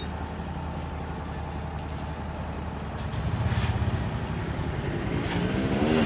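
Engine of a river vehicle ferry running as it pulls in to the landing, getting louder about three seconds in. Near the end, motorbike engines rev up and rise in pitch as the bikes roll off the ferry.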